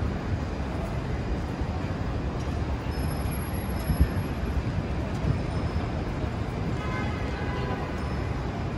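City street ambience: a steady wash of traffic noise, with a brief knock about four seconds in.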